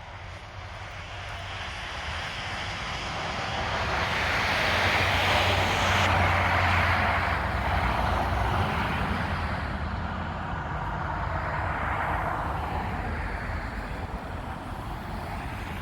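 A vehicle passing by: a rush of noise with a low hum that builds to a peak about five to seven seconds in and fades, then a smaller second swell near twelve seconds.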